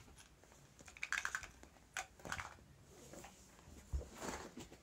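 A cat's claws and a fabric fish toy scratching and tapping on a wooden floor as the cat grapples and kicks the toy, in several short, irregular bursts of clicks and scrapes.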